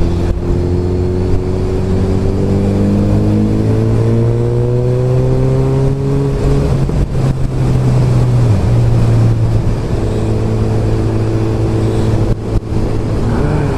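Motorcycle engine heard from the rider's seat, its note climbing slowly as the bike pulls for the first six or seven seconds, dipping briefly just past the middle, then holding steady at cruising speed, with wind rush over it.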